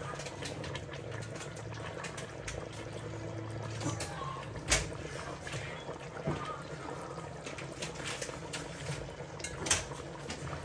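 Kitchen work: water being poured, with scattered clinks and two louder knocks, one about halfway through and one near the end.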